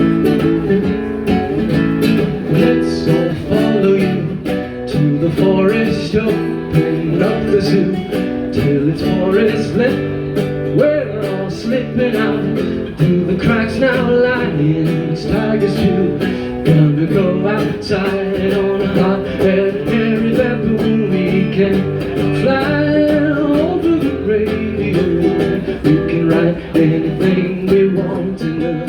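Fingerpicked acoustic guitar playing a steady, rhythmic instrumental intro.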